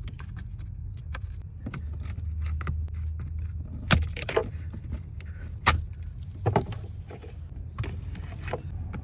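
Dried flood mud being scraped and picked off a car's wiring harness by hand and with a thin tool, with a scattering of sharp clicks and knocks; the loudest come about four and six seconds in.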